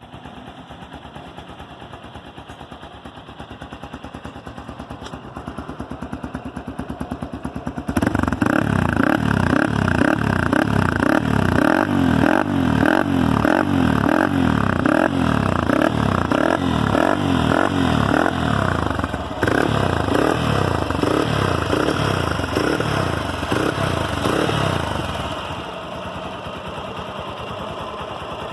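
Hero XPulse 200 single-cylinder engine running through an aftermarket stainless-steel bullet-tip exhaust. It idles at first, then from about a third of the way in it is revved over and over in quick blips that rise and fall, and near the end it settles back to idle.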